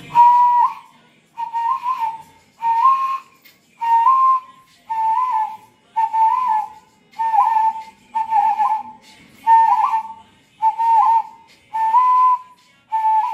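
Hand whistle: a man blowing into his clasped, cupped hands, giving a row of about a dozen short hooting whistle notes, roughly one a second, each ending with a small flick or warble in pitch.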